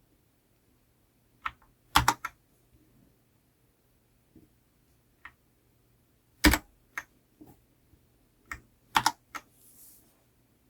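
GamePower Eva 7 wireless mechanical keyboard with red switches: a few scattered key presses in three small clusters, sharp clicks rather than steady typing. A soft brief hiss near the end.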